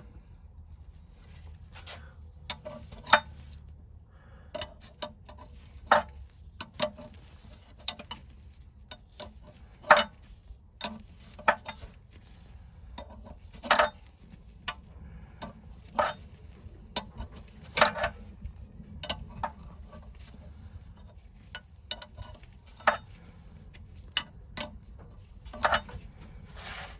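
Irregular sharp metallic clicks and clinks of a spanner working a gear puller to draw the oil pump drive gear off a 1921 Lister stationary engine.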